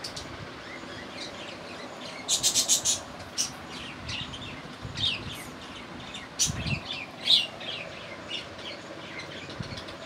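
Budgerigar chirping: a quick run of about six sharp high chirps about two seconds in, then scattered single chirps. A brief low thump comes near the middle.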